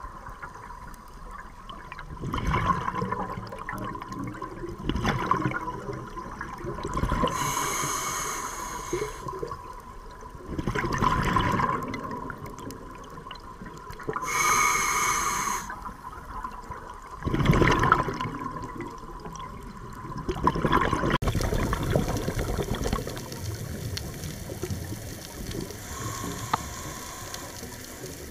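Scuba diver breathing through a regulator: two hissing inhalations and several bursts of bubbling exhaust, in a slow rhythm every few seconds. In the last quarter the breathing gives way to a steadier underwater wash.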